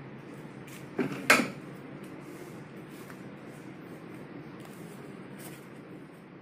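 Two sharp knocks close together about a second in, then a few light taps, as cut soap bars and the wooden frame of a hand-operated soap-cutting machine are handled, over a steady low hum.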